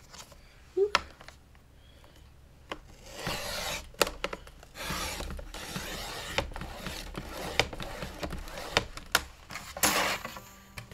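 Paper being handled and rubbed against the work surface: rustling and sliding with scattered taps and clicks, a louder rustle near the end.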